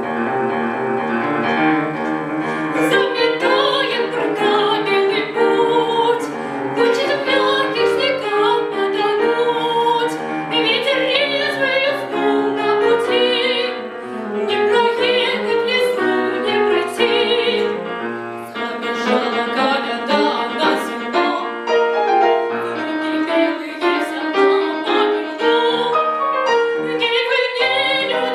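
A young girl's solo classical voice singing with vibrato over piano accompaniment, the piano starting the phrase and carrying on beneath the voice.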